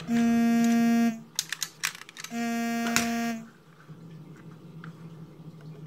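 Two long steady tones of the same pitch, about a second each, one at the start and one about two seconds in. Between them come light clicks of the plastic parts of a Transformers Titans Returns Six Shot figure being handled and fitted into jet mode.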